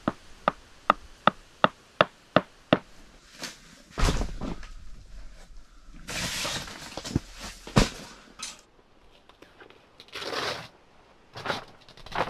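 Sounds of pitching a tent: a run of about eight sharp, slightly ringing clicks in an even rhythm, then a thump and a few knocks, and two spells of tent fabric and groundsheet rustling.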